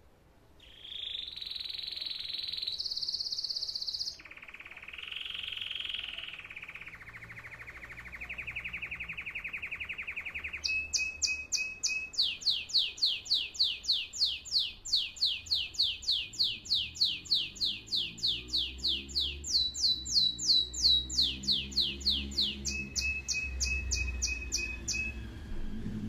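Spanish Timbrado canary singing: a few held notes and a fine rapid trill in the first seconds, then from about ten seconds in long runs of fast repeated notes that change pitch section by section. A low rumble sits under the song in the second half.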